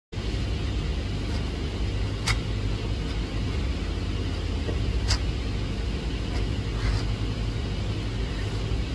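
Metal putty knife spreading wood filler over a wooden board: a steady soft scraping over a low rumble, with two sharp ticks, about two and five seconds in.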